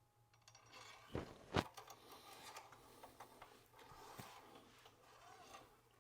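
Faint handling noises: two light knocks about a second and a half in, then soft rubbing and rustling.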